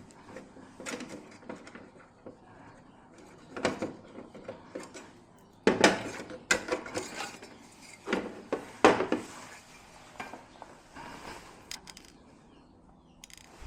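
Clinks and knocks of tools and small hard parts being handled, scattered and irregular, loudest about six and nine seconds in.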